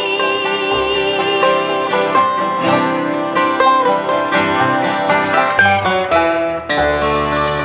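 Bluegrass band playing the instrumental close of a song: fast banjo picking over mandolin, acoustic guitar and upright bass. About seven seconds in the band moves to a held final chord.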